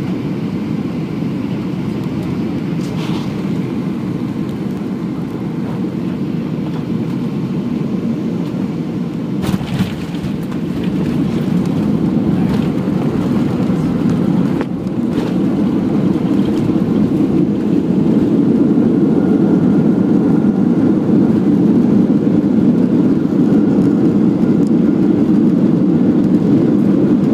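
Airliner cabin noise from a window seat over the wing during landing: a steady low rumble, with a sharp knock about nine and a half seconds in. The noise grows louder after about ten seconds and again from about fifteen seconds, during the landing roll with the spoilers raised.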